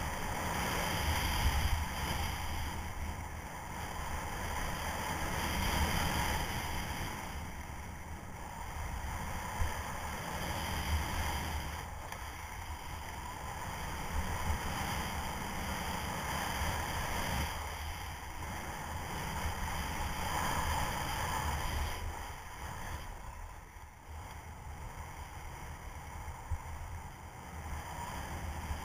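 Wind buffeting the camera microphone and skis hissing over packed snow on a downhill run. The rushing swells and eases every few seconds as the skier turns.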